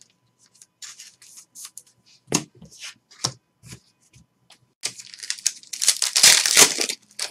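Foil trading-card pack torn open by hand: a loud crinkling tear lasting about two seconds near the end, after a few seconds of light scattered clicks and rustles of cards being handled.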